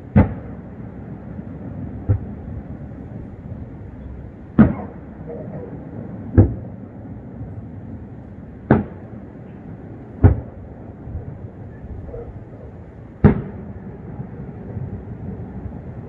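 Aerial firework shells bursting: seven booms one to three seconds apart over a steady background noise.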